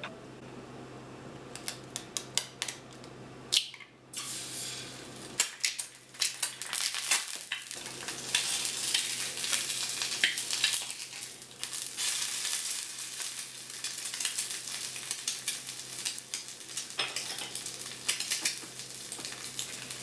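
Kitchen sounds: a few clinks of utensils and dishes, then from about six seconds in a steady crackling sizzle of food frying in a pan, dotted with small pops and clicks.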